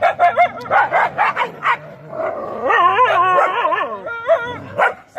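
Dogs fighting: a run of quick, sharp barks, then a loud wavering yelping cry about halfway through, and a few more barks near the end.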